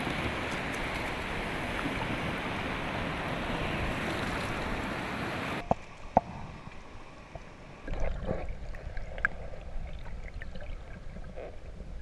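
Steady surf washing in shallow ocean water. About halfway through it cuts to quieter close-up water sloshing and small splashes at the water's surface as a sea turtle is released from hands, with a few sharp clicks and a low rumbling wash.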